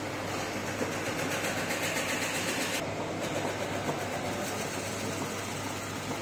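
Steady running of workshop machinery in a brass press shop, the motor and flywheel of a mechanical power press turning without striking: a constant low hum under a hiss. The sound changes abruptly about three seconds in.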